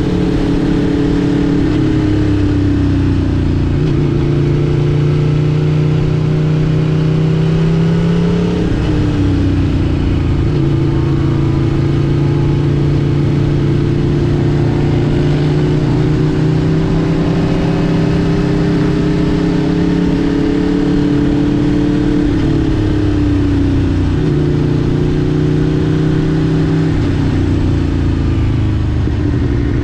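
Aprilia RSV4 Factory's V4 engine running on the move, holding steady revs for long stretches, with drops in pitch about nine seconds in and again about twenty-three seconds in.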